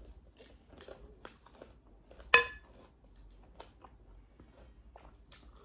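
Close-up chewing and wet mouth sounds of someone eating thukpa noodle soup and pork, with small smacks throughout. About two seconds in comes one sharp clink that rings briefly, the loudest sound.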